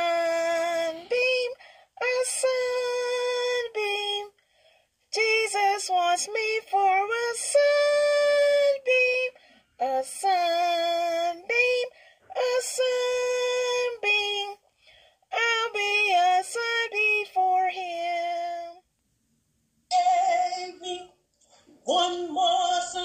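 Unaccompanied singing voice in phrases of long, steadily held notes separated by short breaks, with a longer break near the end before the singing starts again.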